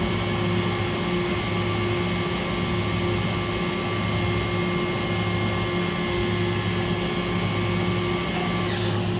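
1999 Makino V33 vertical machining center running, with a steady hum and a high whine made of several tones. Near the end the high whine drops in pitch.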